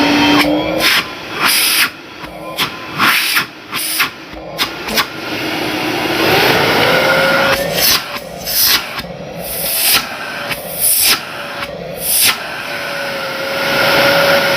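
1800 W canister vacuum cleaner running. Its motor whine rises in pitch about six seconds in as it is turned up from minimum to maximum suction. The airflow rush changes abruptly again and again as a hand is put over the nozzle and taken off.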